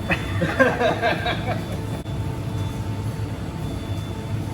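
Oatcake production-line machinery running with a steady low hum.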